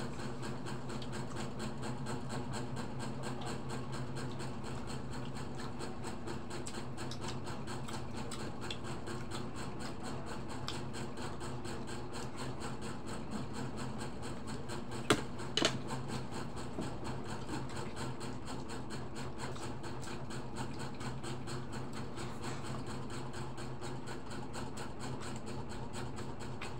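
A steady low mechanical hum, with two sharp clicks about half a second apart midway through, of dishes or utensils knocking at the table.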